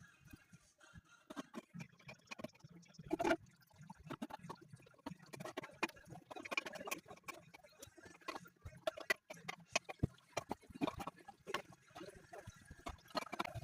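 Irregular clicking and knocking as toilet tank parts are handled and fitted, with one louder knock about three seconds in.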